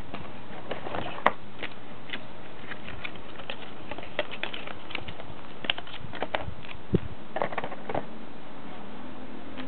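Scattered light plastic clicks and taps from handling a Kamen Rider W Gaia Memory toy, over a steady hiss.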